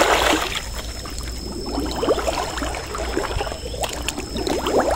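Water splashing and trickling, uneven and irregular, as a gill net is worked along in a muddy canal.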